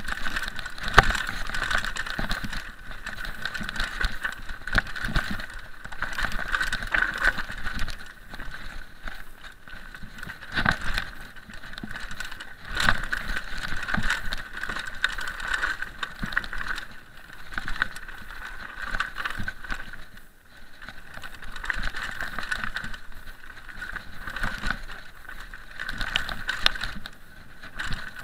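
Full-suspension mountain bike descending a rough, rocky trail: tyres crunching over loose stones, with the bike rattling and knocking irregularly over the rocks.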